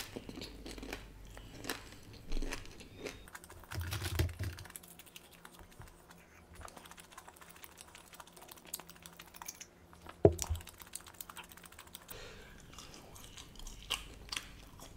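Close-miked chewing of fried fast food: a steady run of small wet clicks and light crunches. A low thud comes about four seconds in, and a sharper, louder knock about ten seconds in.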